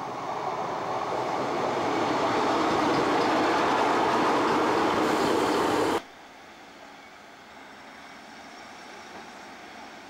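Class 150 Sprinter diesel multiple unit passing close by, its engine and wheel-on-rail noise growing louder over the first few seconds into a steady din. About six seconds in the sound cuts off abruptly to a much quieter, steady train noise as the unit draws into a station.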